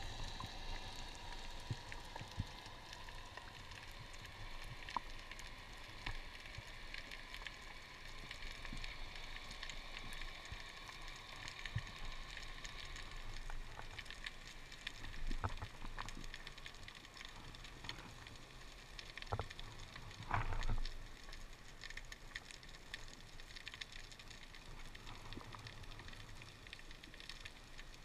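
Underwater ambience heard through an action camera's waterproof housing: a steady crackle of fine clicks, with faint high tones slowly dropping in pitch over the first half. There is a louder rustling burst a little past halfway and another about three quarters in.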